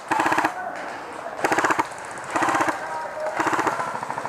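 Airsoft rifle firing short full-auto bursts of rapid clicks, four bursts about a second apart.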